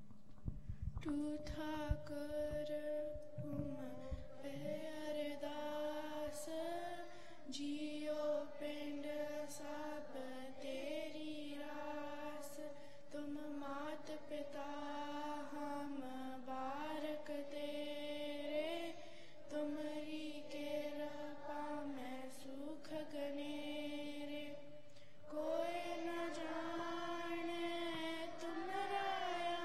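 A woman's voice chanting a Sikh devotional prayer into a microphone, holding long notes within a narrow range in phrases of a few seconds with short breaks between. A few low thumps sound in the first few seconds.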